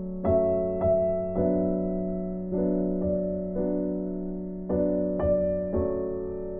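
Background music: slow, soft piano playing notes and chords over a held low note.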